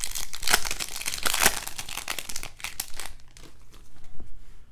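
Baseball card pack wrapper being torn open and crinkled as the cards are pulled out: a dense run of crackles in the first second and a half, then sparser and quieter.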